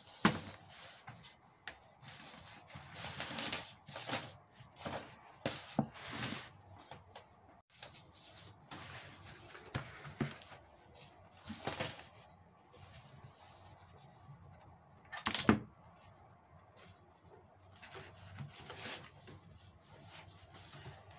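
Handling noises of a craft piece: hands rubbing and pressing sisal rope onto a jug covered in wooden popsicle sticks, with scrapes and knocks on the tabletop and one sharper knock about 15 seconds in.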